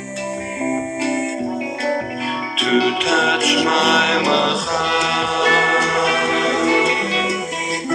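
Music: a song playing, with no sung words here.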